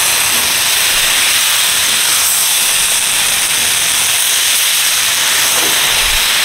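Potatoes, brinjal and flat beans frying in oil in a metal kadai, a loud steady sizzle as a spatula turns them.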